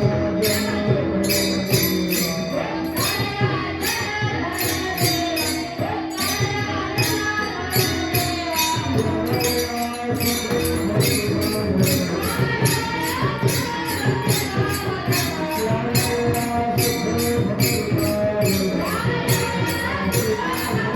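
Devotional kirtan music: a man singing a gliding melody over steady held notes, with a fast, even beat of small hand cymbals and a drum.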